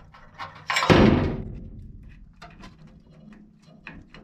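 Lineman's pliers pulling a wire's push-on terminal off an air-handler blower motor's run capacitor: one sharp clunk about a second in that dies away over the next second, then light clicks and scrapes of metal.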